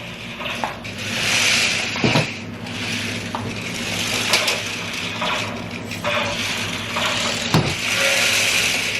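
Small electric motors and plastic gearboxes of remote-control laser-tag toy tanks whirring as they drive, the whir swelling and easing, with scattered clicks and knocks.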